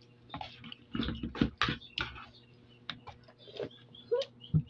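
Short clicks and knocks of eating at the table, with a few brief high squeaks in the second half.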